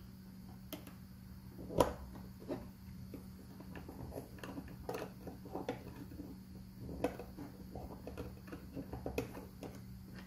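Small screwdriver clicking and scraping on screws and a 3D-printed plastic enclosure, with light knocks from the plastic parts being handled; one sharper knock about two seconds in.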